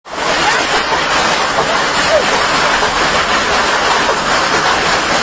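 Hailstorm with rain coming down hard: a loud, steady rush of pelting noise that starts suddenly and never lets up.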